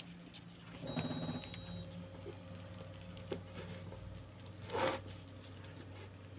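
Soft rustling and squishing of a colocasia leaf spread with gram-flour paste as hands fold and press it down, with a louder rustle near five seconds. A low steady hum runs underneath.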